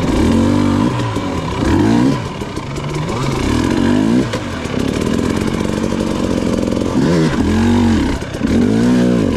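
Two-stroke dirt bike engine being revved hard, its pitch climbing and falling back repeatedly as the throttle is worked on and off.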